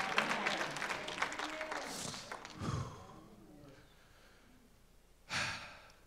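Brief congregation clapping with a few voices calling out, fading away after about three seconds. Near silence follows, then a short breath into a handheld microphone near the end.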